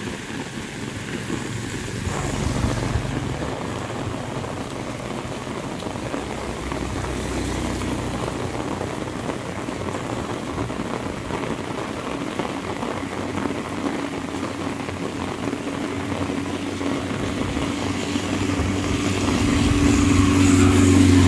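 Heavy rain falling steadily on the road and surrounding leaves. A small motorcycle engine passes in the first few seconds, and a small four-wheel-drive vehicle's engine grows louder as it approaches near the end, the loudest part.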